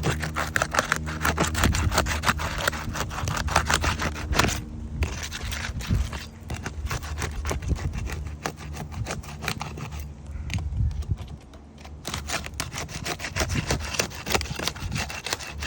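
A roof snake, a metal shingle-removal tool, scraping and prying under asphalt shingles to break the sealant bond and lift them off their nails, in rapid repeated strokes that ease off for a couple of seconds past the middle. The brittle shingles crackle and tear as they are worked loose.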